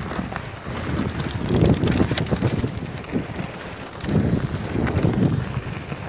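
Wind buffeting the microphone of a camera on a mountain bike rolling fast down a dirt trail, swelling twice into a low rumble, with scattered sharp clicks and rattles from the bike over the bumps.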